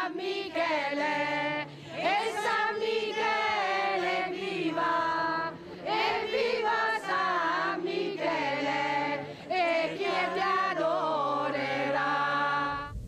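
A group of pilgrims, mostly women, singing a devotional song together in phrases of a few seconds with short pauses for breath. The singing cuts off suddenly near the end.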